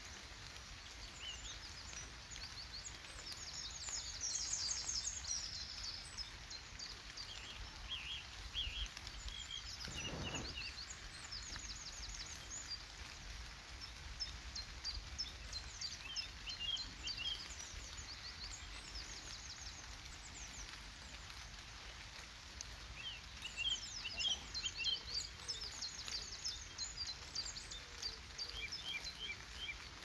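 Small songbirds calling with short, high chirps and twitters that come in scattered clusters, over a steady low background rumble. About ten seconds in, a brief louder rush of noise passes.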